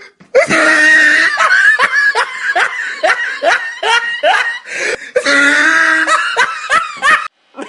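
Loud, hearty laughter in a rapid run of short rising bursts. It stretches into longer held laughs near the start and again about five seconds in, and breaks off just before the end.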